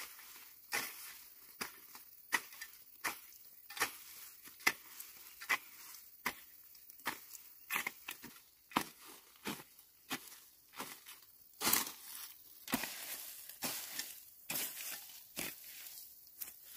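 A hand hoe chopping into dry soil with sharp strikes at roughly one a second. In the last few seconds the strikes give way to denser scraping and rustling.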